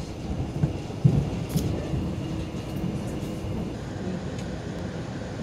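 Steady low rumble of a Mugunghwa passenger train running, heard from inside the carriage, with a few sharp knocks in the first second or so, the loudest just after one second.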